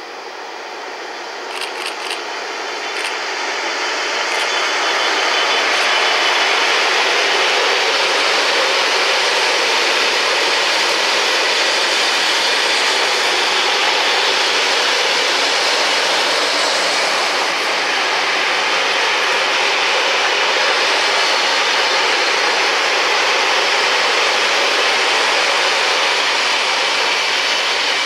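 A GBRf Class 66 diesel locomotive approaches and passes, followed by a long train of open box wagons rolling by: a steady rush of steel wheels on rail that grows louder over the first few seconds and then holds.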